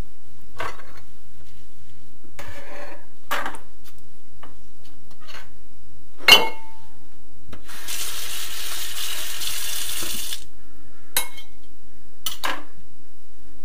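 Kitchen tap running into a sink for about two and a half seconds, amid scattered knocks and clinks of dishes and utensils; one sharp clink that rings briefly comes about six seconds in.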